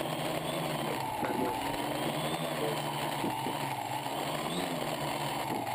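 Quadcopter's electric motors and propellers humming steadily in a hover, the pitch wavering slightly as the flight controller corrects against the wind.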